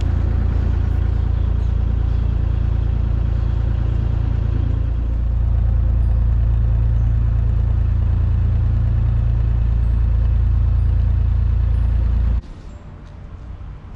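Dutch barge's inboard engine running steadily under way, a low drone that gets a little louder about five seconds in and cuts off suddenly near the end.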